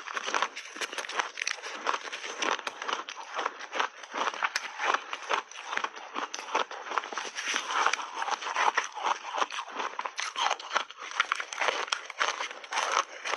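Close-miked chewing and crunching of big mouthfuls of purple-and-green reshaped ice, a dense run of sharp crackling crunches with a fresh bite near the end.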